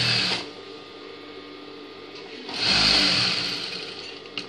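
Industrial sewing machine running while stitching, stopping about half a second in. It runs again in a short burst of about a second near the middle, then fades out.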